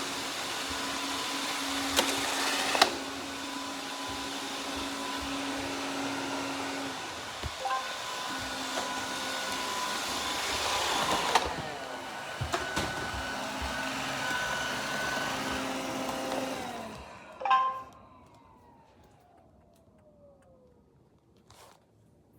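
iRobot robot vacuum running with a steady whir and hum, broken by a few sharp clicks. About 17 seconds in it stops with a knock, and its motor winds down in a falling whine that fades out.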